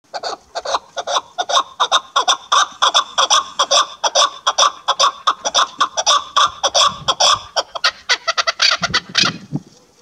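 Caged chukar partridge calling: a loud, fast, unbroken run of short chuck notes, many per second, that stops near the end.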